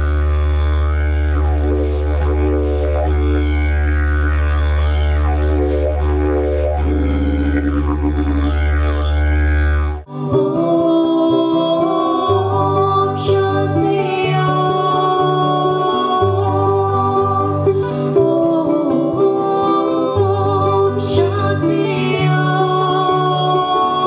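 Didgeridoo drone: one steady low note whose overtones sweep up and down as the player shapes the sound. About ten seconds in it cuts to slow group singing with a ukulele over low notes that shift every second or two.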